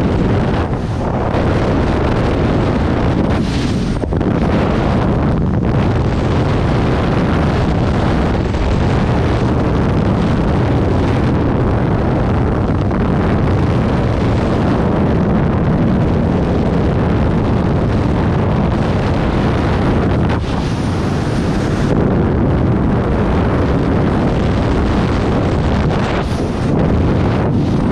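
Loud, steady wind rush buffeting a body-mounted camera's microphone, the roar of skydiving freefall airflow, with a few brief dips in level.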